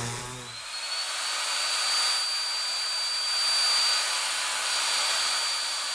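Small electric motor whirring: a high whine that rises as it spins up just under a second in, then holds steady over a hiss.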